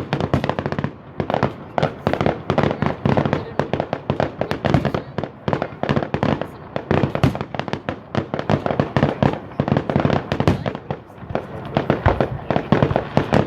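Fireworks going off in a dense barrage: rapid, overlapping sharp bangs, many a second, with no let-up.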